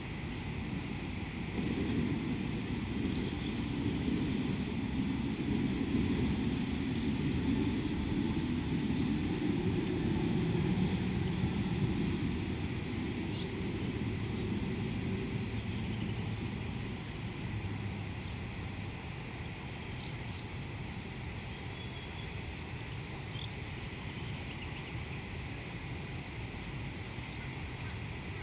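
Outdoor rural ambience: a steady high-pitched drone, with a low rumble that swells over the first couple of seconds and fades away after about twelve seconds.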